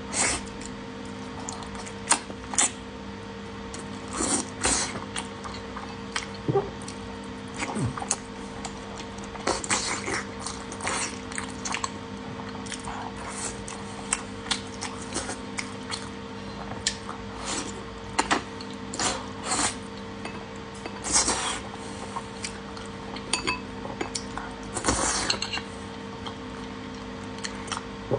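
Close-miked eating of spicy beef tendon: irregular wet chewing and squishing sounds with occasional clicks of utensils. A steady low hum runs underneath.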